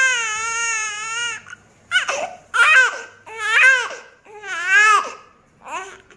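Newborn baby crying: one long cry, then several shorter cries with brief breaks between them. He was startled into crying by a pressure cooker's whistle.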